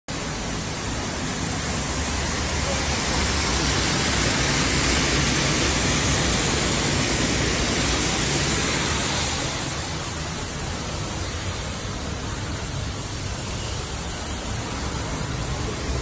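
Steady rush of the Düden Waterfall, a full hiss of falling water that swells over the first few seconds and drops somewhat about ten seconds in.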